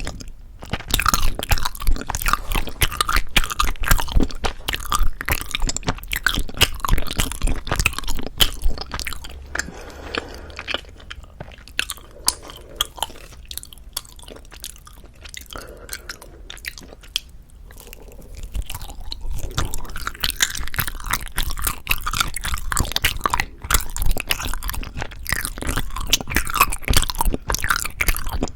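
Close-miked chewing of soft, sticky Korean rice cake (tteok), a dense run of wet, clicky mouth sounds. It goes softer for several seconds in the middle, then picks up again.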